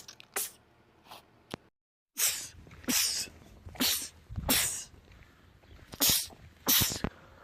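A man sneezing in rapid fits: a few quick sneezes, a brief silence, then about six sharp sneezes in quick succession, less than a second apart.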